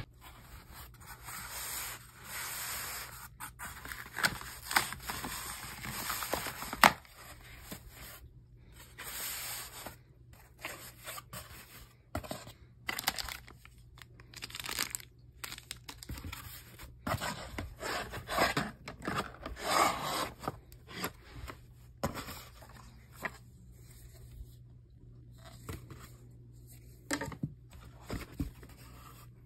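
Cardboard box and plastic wrapping being opened and handled while a hinged glass aquarium lid is unpacked: irregular tearing, rubbing and scraping of cardboard and plastic, with scattered sharp clicks.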